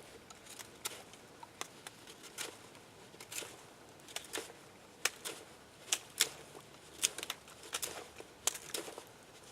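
Bark River Mini Bushcrafter knife carving wood: a series of short, sharp slicing strokes, irregular, about one or two a second.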